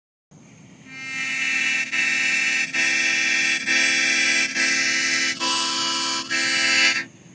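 A loud, steady horn-like chord sounding in a run of notes just under a second long, each broken by a short gap, with a change of pitch about two-thirds through; it cuts off suddenly near the end.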